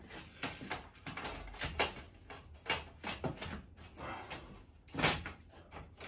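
Handling clatter as a diesel heater's air hose is fitted back onto a round outlet in a perforated metal grille: a series of short knocks and rattles, the loudest about five seconds in.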